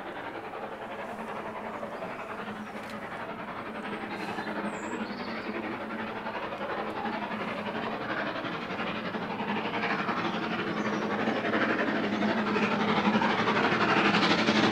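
Steam locomotive approaching under steam, its exhaust and running noise growing steadily louder as it nears.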